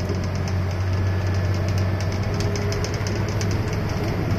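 Diesel engine of a heavy truck or bus running steadily while driving, heard from inside the cab as a low, even drone, with light rattling from the cab.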